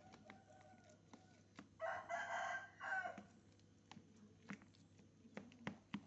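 A rooster crowing once, one call lasting about a second and a half, followed by a few light clicks.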